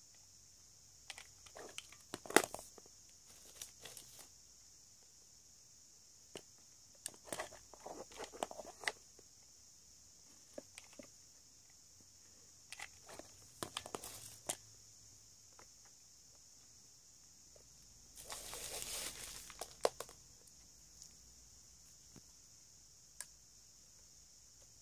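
Small wooden boxes and drawers handled on a tabletop: scattered light knocks and clicks in short clusters, the sharpest about two seconds in, and a scraping rustle for about two seconds starting some 18 seconds in.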